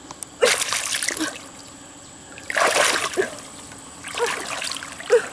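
Hands splashing and churning in shallow muddy water while groping for fish, in three bursts about a second long each, with quiet gaps between.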